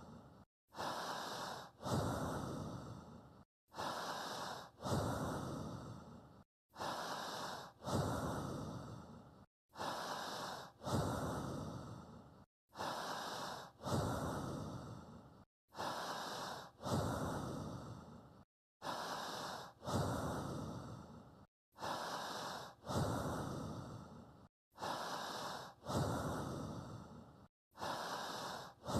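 Human breathing for paced breath-synchronisation, one evenly timed breath about every three seconds. Each breath is a short intake, a brief pause, then a longer breath that starts loud and fades away, with a silent gap before the next.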